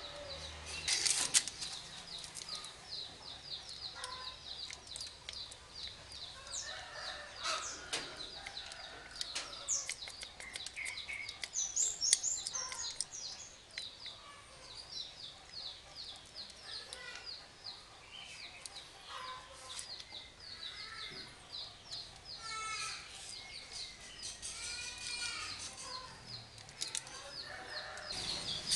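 Birds calling: rapid high chirping throughout, with lower, arched calls in the later part. A few sharp clicks and knocks stand out among them.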